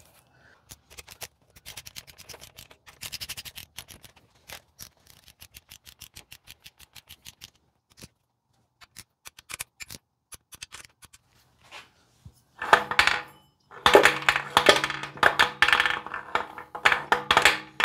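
Ratchet of a torque wrench with a 13 mm socket on an extension, clicking in quick runs as the case-half nuts of a VW air-cooled engine are run down and torqued to 14 ft-lb. About two-thirds in, a louder stretch of clatter over a steady low hum takes over.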